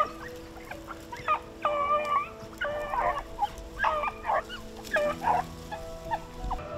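A pack of beagles baying while running a rabbit's track: about a dozen drawn-out, wavering howl-barks from several hounds, one after another.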